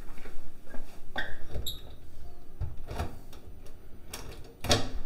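A few light clicks and knocks, then near the end a louder sharp click as a metal lever door handle is pressed down and the door latch releases.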